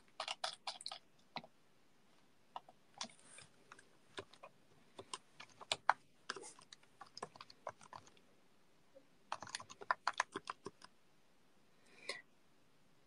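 Computer keyboard being typed on in short, irregular bursts of keystrokes, faint, with pauses of a second or more between bursts.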